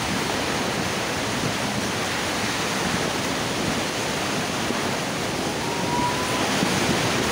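Heavy thunderstorm rain and wind beating on a tent's fabric and mesh window, a steady dense hiss.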